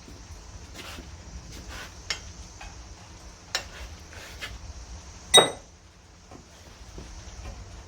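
Scattered light metallic clicks and clinks of steel tools and parts being handled, then one sharp, ringing metal clang about five and a half seconds in.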